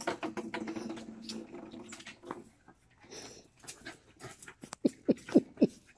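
Two dogs, a beagle and a fluffy white dog, play-fighting: scuffling and small clicks, then a quick run of short, falling yelps about five seconds in.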